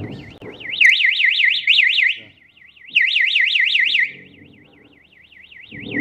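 12 V strobe alarm siren wailing, its high pitch sweeping up and down about five times a second. It swells loud twice for about a second each, falling back to a fainter wail between.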